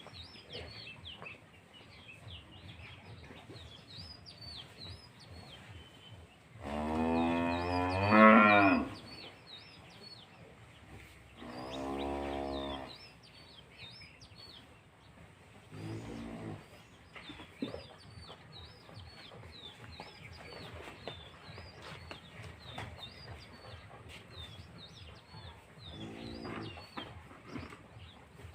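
Cows mooing four times: a long, loud call that rises at its end, a second call a few seconds later, then two fainter ones. Small birds chirp throughout.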